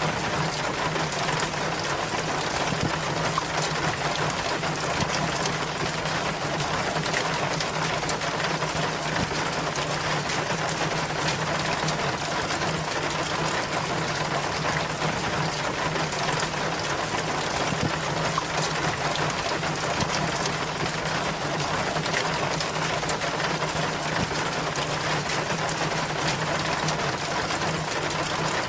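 Rainwater running steadily down a rain chain, a dense continuous splashing and pattering of water with many small drips, over a low steady hum.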